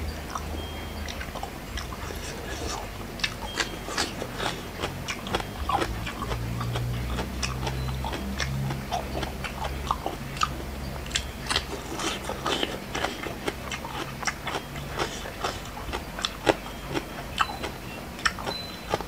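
Close-up chewing and biting of a crisp, spicy lotus-stem salad: many small crunches and wet mouth clicks, irregular and continuous, over a low steady hum.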